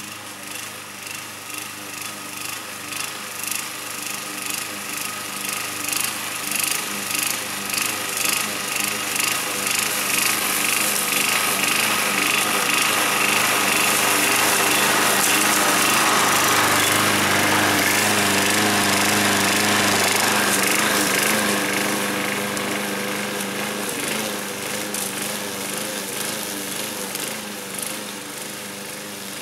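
Alpina BL 510 petrol walk-behind lawn mower running as it cuts dry, long grass. The sound swells and dips about once a second at first, grows louder as the mower comes closer, peaks about halfway through, then fades as it moves away.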